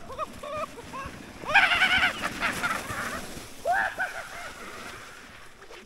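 Excited whoops and shouts from people riding a makeshift snow slide, loudest about a second and a half in, with a short rush of noise under the loudest shout and another whoop near four seconds.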